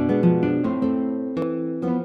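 Background music with plucked string notes, several a second, each struck sharply and fading.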